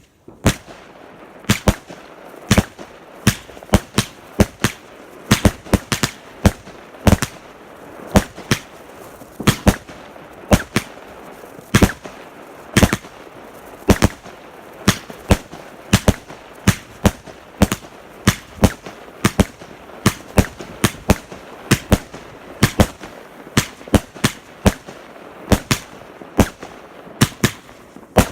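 New Year fireworks going off in a rapid, irregular string of sharp bangs, about two a second, over a steady crackling background.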